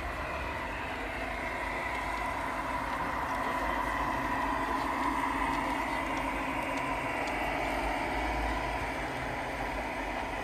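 Piko G-scale model BR 106 diesel shunting locomotive running, its onboard sound module playing a steady diesel engine drone. A few light clicks of the wheels over the rail joints come in the middle, where the sound swells slightly as the locomotive passes.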